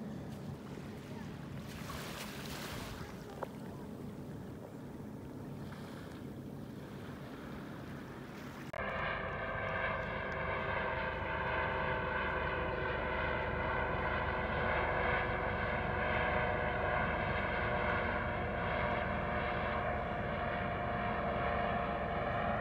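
Wind and water-like noise, then, after an abrupt cut about nine seconds in, a louder engine drone that holds one steady pitch.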